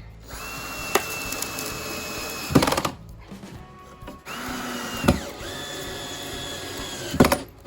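Cordless drill driving two screws into plywood: two runs of steady motor whine, the second dropping in pitch as it comes under load, each ending in a quick burst of loud clicks as the screw seats with the clutch's torque set low. Background music plays underneath.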